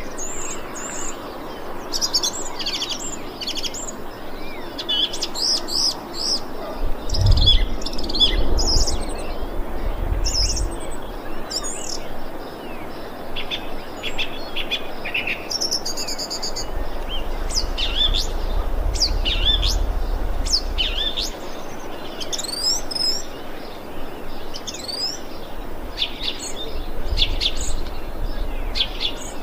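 Thrush calling: a steady run of short chirps and slurred whistled notes, with a low rumble coming and going twice.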